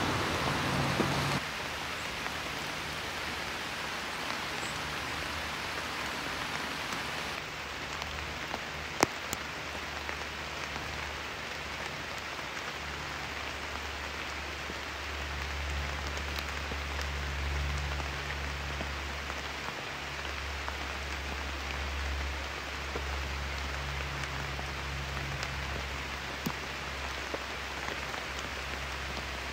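Steady rain falling on cedar trees and stone paving, with scattered single drops tapping close by and one sharper tap about nine seconds in.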